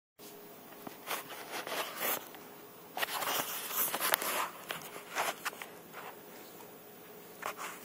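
Irregular scuffling, rustling and scraping as a small dog tussles with a toy on a rug, mixed with handling noise from the phone's microphone.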